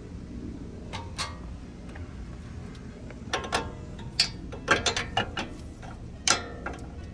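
Metal tools clicking and clinking on the front suspension bolts: scattered sharp clicks, with short runs of ratchet-like clicking a little past the middle.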